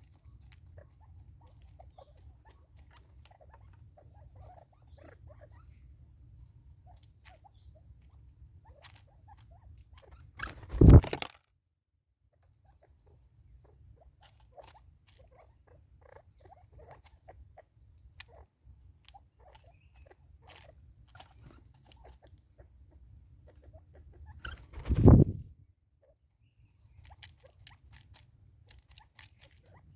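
Birds pecking at seed on the ground, giving many faint, irregular ticks over a low steady rumble. Two loud, deep thuds break in about 11 and 25 seconds in.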